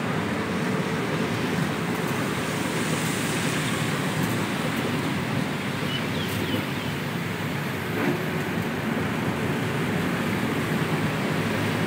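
A truck driving steadily along a city street: steady engine and road noise with wind rushing over the microphone, and a faint knock about eight seconds in.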